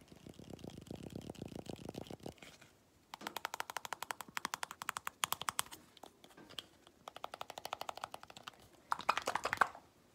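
Fingernails tapping very fast on a small plastic bottle, about ten taps a second, in several runs with short pauses between them. The first run is duller and the last is the loudest.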